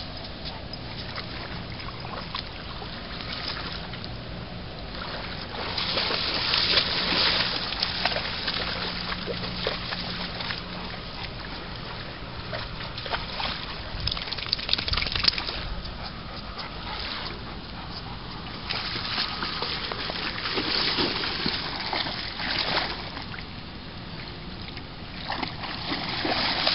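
A dog splashing and sloshing through shallow water, in several louder bouts that come and go.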